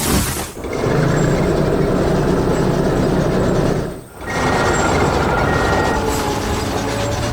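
Heavy construction vehicle engine running loudly, dropping away briefly about half a second in and again about four seconds in.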